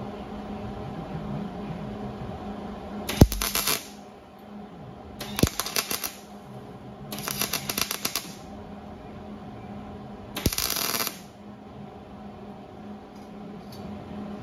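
MIG welder striking four short tack welds on a steel grille frame, each a crackling arc lasting under a second to about a second, with pauses of a couple of seconds between them.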